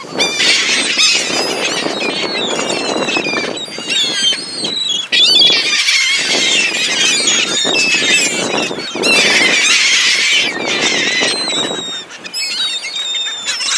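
A flock of seagulls calling loudly, with many short, overlapping, falling calls.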